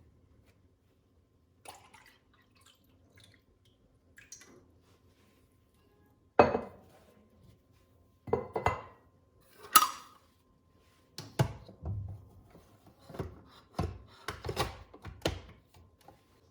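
Cups and kitchenware being handled on a counter: sharp knocks and clinks, a few widely spaced ones about six to ten seconds in, then a quick run of them over the last five seconds, one leaving a short ringing tone.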